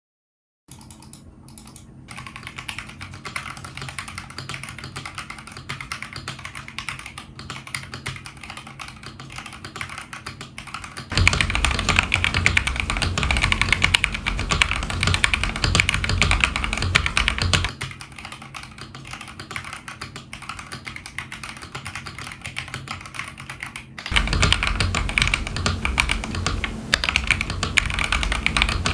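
Steady, rapid typing on a stock Feker IK75 Pro mechanical keyboard with Akko Jelly Black linear switches and Akko keycaps. The typing starts just after the beginning and alternates between quieter and louder passages, the louder ones starting about eleven seconds in and again near the end.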